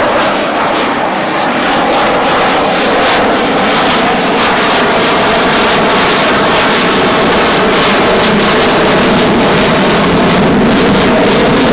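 F-35A Lightning II jet engine at high power as the fighter flies a display pass: loud, steady jet noise with no sudden changes.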